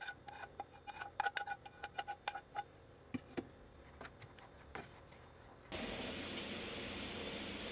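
Quick clinks and taps of a utensil scraping chopped onion and garlic off a plate into a frying pan, some with a short ringing tone, then two softer knocks. About three-quarters of the way in, a steady sizzle of the onions frying in hot oil starts abruptly.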